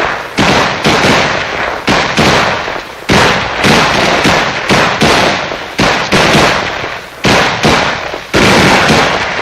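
Rifle gunfire: single shots in an uneven string, roughly every half second to a second, each loud and followed by a long echoing tail.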